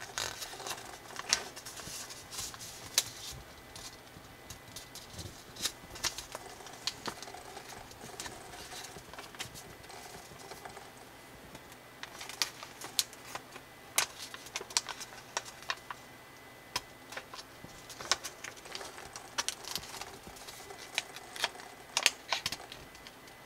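A small sheet of origami colour paper being folded and creased by fingers: irregular crisp crinkles and clicks of the paper, in clusters with quieter spells between.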